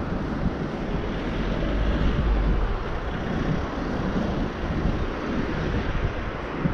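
Street ambience: a steady hum of city traffic, with wind buffeting the microphone in low rumbling gusts, strongest about two seconds in.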